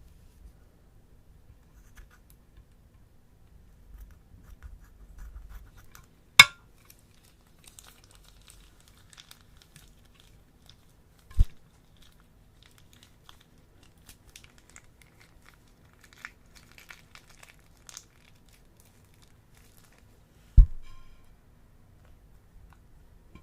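Slime being handled, with faint crinkling crackles and three loud hits: a sharp snap about six seconds in, then two deep slapping thuds later on.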